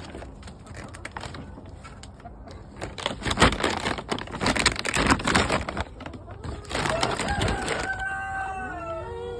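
Woven plastic feed-bag covers rustling and crinkling as they are pulled about and off the coop, then a chicken calling from inside with long, drawn-out notes that fall in pitch near the end.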